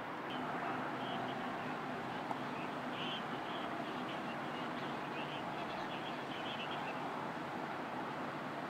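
Faint, scattered bird calls over a steady background rumble of street noise. The calls fade out about seven seconds in.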